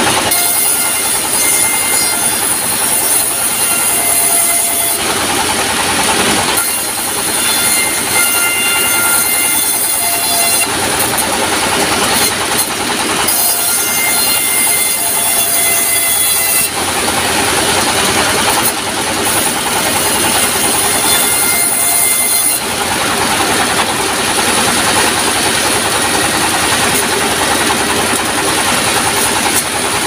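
Diesel-driven sawmill resaw running and ripping planks, a loud continuous machine noise. Its tone changes every few seconds as each board goes into the blade and comes out.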